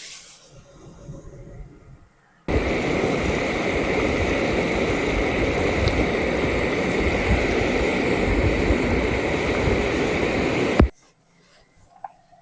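A steady, loud rushing noise like heavy rain or running water that starts abruptly a couple of seconds in and cuts off sharply with a click near the end.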